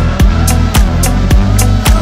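Background music with a steady drum beat: a kick drum about twice a second with hi-hats between.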